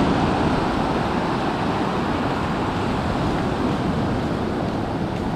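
Rough ocean surf breaking and washing up the beach: a steady, even rush, with some wind on the microphone.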